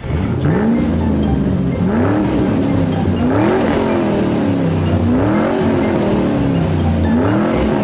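Car engine sound effect revving repeatedly: the pitch climbs and falls back about five times over a steady low running note.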